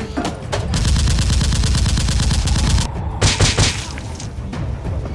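Rapid automatic gunfire running for about two seconds, then a quick cluster of a few louder shots.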